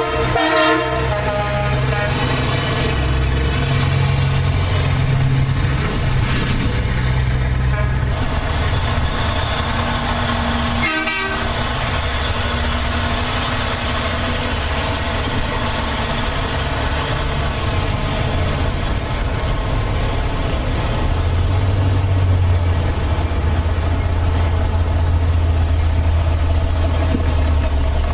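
Big rig semi-truck's diesel engine running steadily with a deep low rumble. An air-horn blast fades out in the first second.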